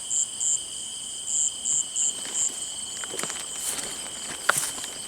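Night insects calling: a steady high trill with a run of short, loud chirps in the first two and a half seconds. From about three seconds in come scattered footsteps and a few sharp knocks.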